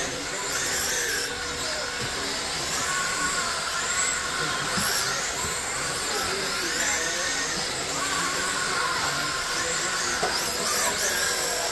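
Several radio-controlled cars' electric motors whining as they race on a dirt oval, many high-pitched tones overlapping and rising and falling as the cars speed up on the straights and slow into the turns.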